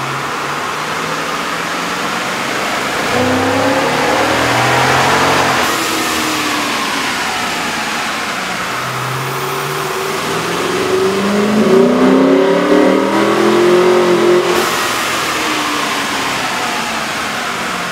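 An SUV's 5.7-litre Hemi V8 revving under load on a chassis dyno, heard with the stock air intake and then with a K&N cold-air intake fitted. The engine note climbs in pitch through two long pulls, and the second pull is louder.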